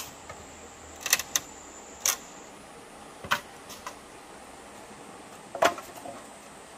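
Wooden poles knocking against stone and against each other as they are lifted and moved: a handful of sharp, unevenly spaced knocks, the loudest about a second in and near the end, over a faint steady hiss.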